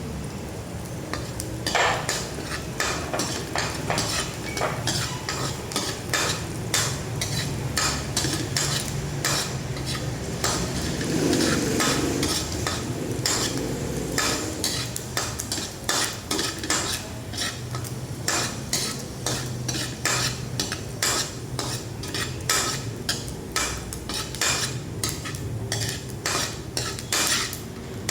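Fried rice being stir-fried in a pan: a spatula scrapes and taps against the pan in quick, irregular strokes while the food sizzles, over a steady low hum.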